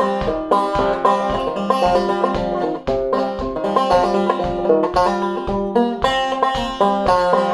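Clawhammer banjo in open fCFGC tuning playing an old-time tune: a steady rhythm of picked notes and brushed strums, the strings ringing between strokes.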